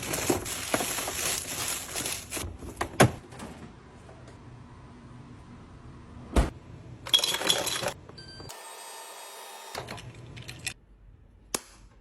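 Objects being handled in a restock clip: scattered clicks, clinks and short rattles of items and containers, ending in a few sharp, separate clacks.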